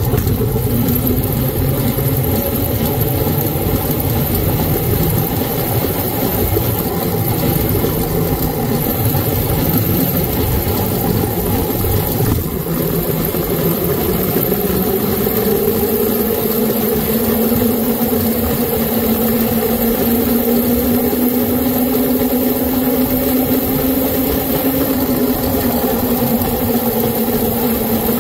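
A 52 V, 1800 W electric mini scrambler riding along, with tyre and wind noise. There is a rough rumble over broken road surface in the first half. After a brief dip about halfway, on smooth tarmac, a steady electric motor whine rises slowly in pitch as the bike picks up speed.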